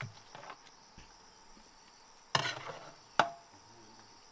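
A metal ladle knocking and scraping against a metal cooking pot as stir-fried chicken gizzards are scooped out: a few sharp clinks, loudest about two and a half and three seconds in, the last with a short metallic ring. A steady high buzz of insects runs underneath.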